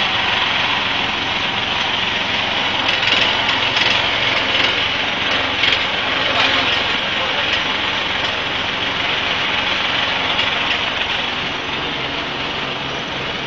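A vehicle engine running steadily at idle under a constant hiss of street noise, easing off slightly near the end.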